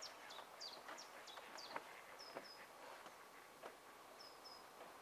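Faint birdsong: a quick run of short, high chirps in the first second and a half, then a pair of short high whistles twice. A few faint clicks sound under it.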